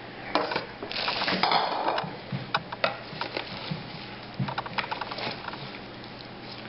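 Salad being tossed in a glass bowl with metal salad servers: a dense rustling scrape about a second in, then scattered clicks and knocks of the servers against the glass and the roasted beet and squash cubes and kale.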